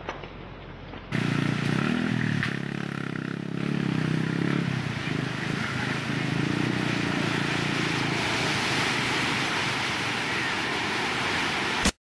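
A loud, steady roar of a surge of muddy water rushing and churning past, starting suddenly about a second in. A low droning tone is mixed in for the first few seconds. The roar cuts off with a click at the very end.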